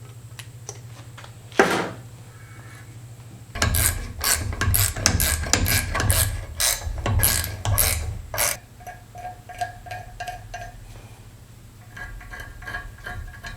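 Hand tap being turned in a tap wrench, cutting threads in a hole in thick steel plate with a fresh tap: one sharp click, then several seconds of rapid metallic clicking and scraping, followed by fainter squeaking near the end.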